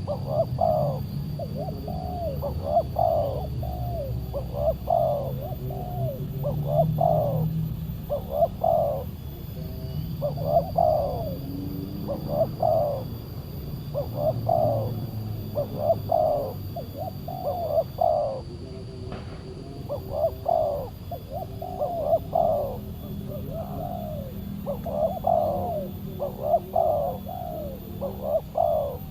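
Spotted doves cooing over and over, the phrases following one another almost without a break, over a low rumble.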